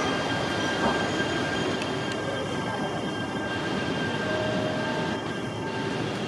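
E3-series Shinkansen train pulling out of the station at low speed: steady running and motor noise with a thin, steady whine over it.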